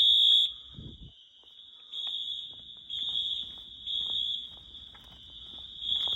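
Wheelock MT fire alarm horns sounding together, each on a different coding pattern: one loud high-pitched blast at the start, then a fainter steady horn tone with stronger pulses about once a second.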